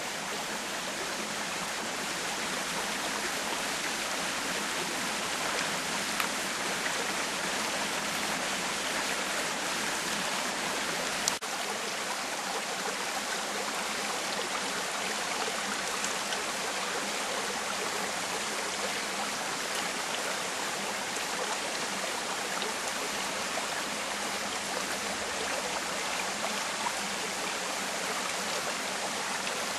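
Shallow mountain creek running over and around stones: a steady rush of water.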